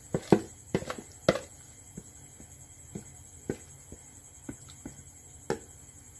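Cake batter being poured from a plastic bowl into a pot, with a spoon scraping the bowl and knocking against bowl and pot: a quick run of soft knocks in the first second and a half, then single light taps about once a second.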